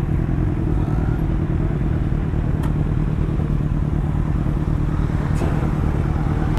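Motorcycle engine running steadily at low revs while rolling at walking pace, with two faint ticks about three seconds apart.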